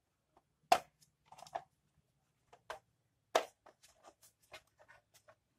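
Plastic housing of a solar light being handled, giving scattered small clicks and taps with two louder knocks, one about a second in and one past the middle.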